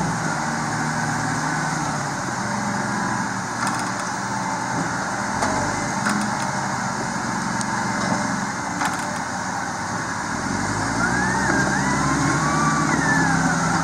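Crawler bulldozer's diesel engine running steadily under load as it drags a log truck through slick mud, with a few faint clanks. A wavering high whine rises and falls near the end.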